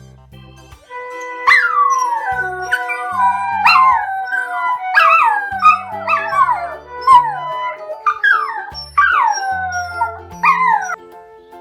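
A dachshund giving a long series of about a dozen short, loud cries, each sliding down in pitch, one after another. Background music plays underneath.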